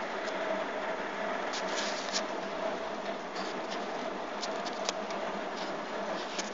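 Heavy rain falling steadily, a constant hiss with scattered light ticks through it.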